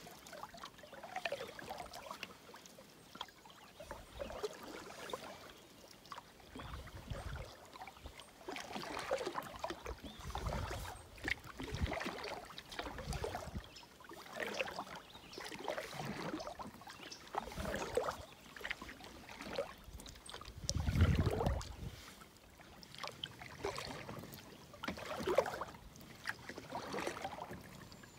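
Canoe paddle strokes in calm water from an Old Town Pack canoe: a soft swish and drip about every couple of seconds. About two-thirds of the way through there is one louder, deeper thump.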